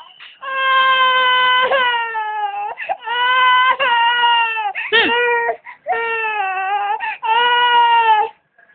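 A baby crying in loud, drawn-out wails: four long ones and one short one, each falling slightly in pitch at its end, with quick breaths between.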